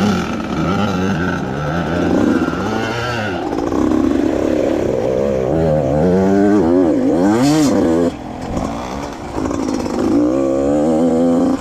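85cc two-stroke dirt bike engine revving up and down as it is ridden through deep water. The pitch rises and falls again and again, swings most widely in the middle, and the engine drops back about eight seconds in.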